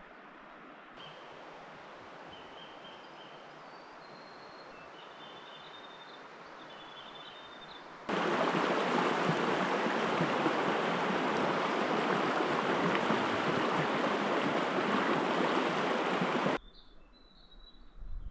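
A shallow stream running fast over stones, a loud, even rushing that starts abruptly about halfway through and stops abruptly near the end. Before it, quieter bush ambience with birds giving short high chirps. After it, a few more high bird chirps.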